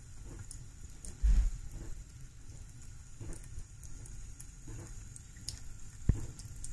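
A thin stream of tap water running and pattering into a kitchen sink, with a cat licking at the falling stream in soft, irregular laps. A dull thump about a second in, and a sharper knock near the end.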